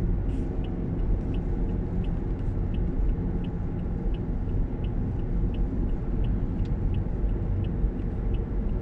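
Car driving, heard from inside the cabin: a steady rumble of engine and road noise, with a quick, regular high ticking about three times a second.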